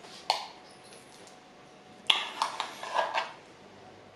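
Spoon scraping and clinking as ground masala paste is spooned onto raw chicken pieces in a glass bowl for marinating: one short clink just after the start, then about a second of scrapes and clinks near the middle.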